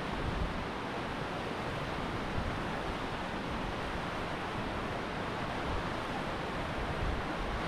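Steady rushing of a river flowing over a rocky bed, with wind buffeting the microphone.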